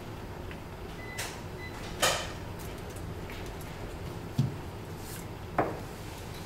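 Outer PVC sheath of a VVF 1.6 mm two-core cable being stripped with a VVF cable stripper: a small click as the blades bite, a sharp snap about two seconds in as the sheath tears free, then a low knock and another snap as the tool and cable are handled.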